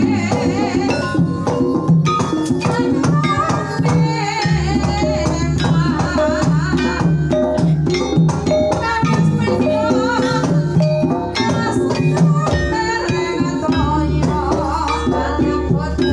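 Javanese Banyumasan gamelan playing a gending, with a sinden (female singer) singing a wavering melody over mallet-struck keyed percussion in a steady rhythm. A deep gong tone comes in about four seconds in, fades out a little after twelve seconds, and sounds again near the end.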